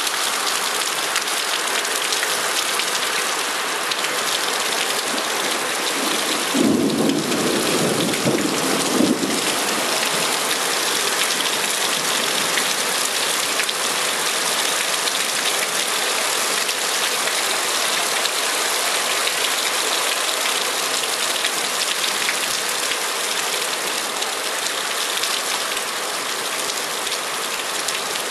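Heavy downpour falling steadily, a loud even hiss of rain. About seven seconds in a rumble of thunder rises under it and lasts about three seconds.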